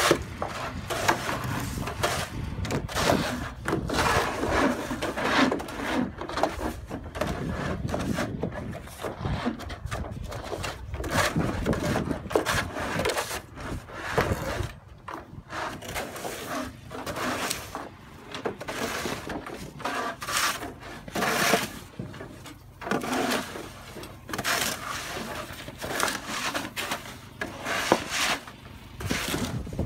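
Snow shovels scraping and chopping snow off steps in irregular, repeated strokes, some short and sharp, some drawn out.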